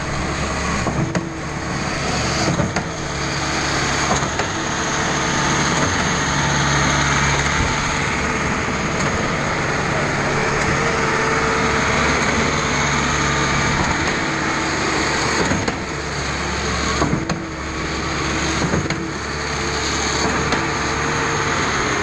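Reed A40 concrete trailer pump running: its engine and hydraulics drone steadily. A knock comes every second or two in the first few seconds and again near the end.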